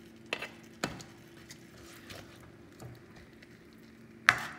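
A black plastic ladle knocking against the side of a stainless steel pan as thick sauce is spooned over chicken and eggs: two knocks within the first second and a sharper one near the end, over a faint steady hum.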